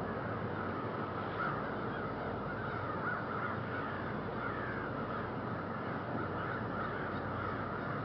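Many crows cawing at once, their calls overlapping continuously, over a steady low background rumble.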